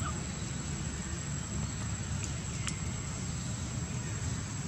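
Steady outdoor background noise: a low rumble with an even hiss, and two faint clicks about two and a half seconds in.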